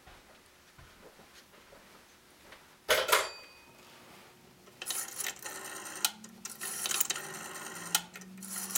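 Rotary telephone dial being turned and whirring back several times in a row, each return a ratcheting run of clicks about a second long, starting about five seconds in. A short loud clatter comes about three seconds in.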